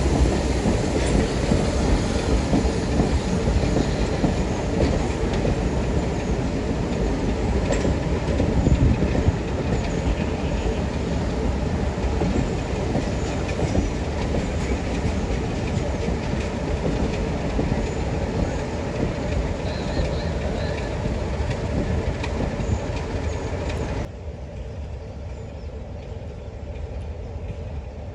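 Train running on the rails, a steady rumble with the clickety-clack of wheels over rail joints. The sound drops sharply about 24 seconds in.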